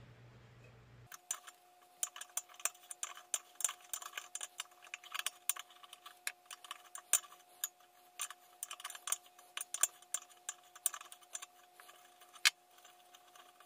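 Adjustable wrench clinking on a nut and the sheet-metal lamp base as the stem nut is worked loose in short turns: a long run of irregular sharp metal clicks and taps, with one louder clack near the end.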